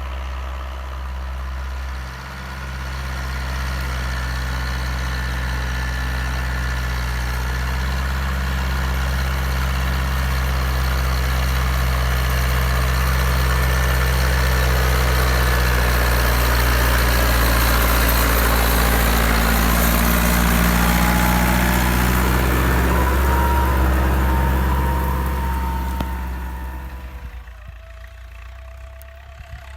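Massey Ferguson 274S tractor's diesel engine running steadily, growing gradually louder over the first twenty seconds, then dropping off sharply about 26 seconds in and fading.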